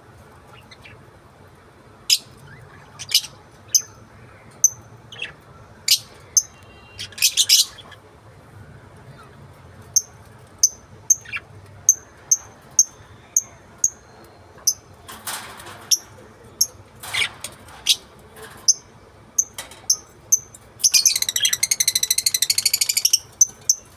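Lovebirds chirping: many short, sharp, high-pitched calls at irregular intervals, a few harsher squawks in the middle, and a fast chattering trill lasting about two seconds near the end.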